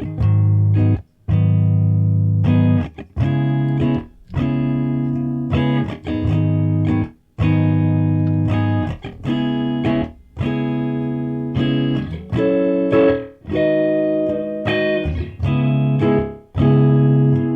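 Electric guitar, a Paul Reed Smith S2 played through a Boss Katana 50-watt amp, playing a series of held chords that each stop abruptly before the next.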